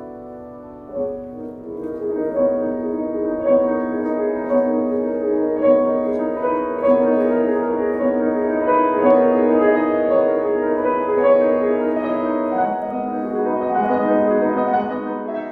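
Solo piano playing slow, sustained chords, with a note struck about once a second over the held harmony; near the end the chord shifts to a lower bass.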